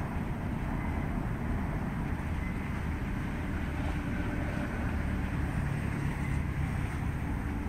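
Steady low rumbling noise outdoors, even throughout with no distinct events.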